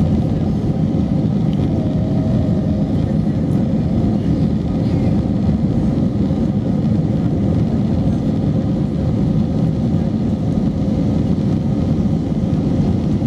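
Steady cabin noise of an Airbus A321-200 in flight, heard from a window seat: an even, low rush of engine and airflow noise with a faint steady hum.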